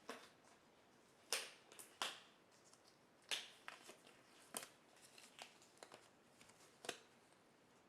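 Irregular sharp clicks and taps of small objects being handled, five louder ones and several fainter ones spread over the stretch, against a quiet background.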